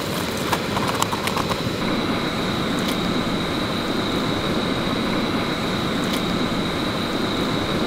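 Steady rushing of a mountain stream's flowing water, with a thin steady high-pitched tone above it.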